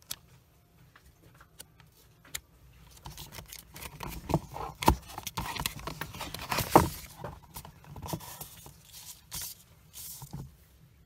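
Handling noise: scattered clicks, then rustling and scraping with two sharp knocks near the middle, as papers and the recording phone are handled.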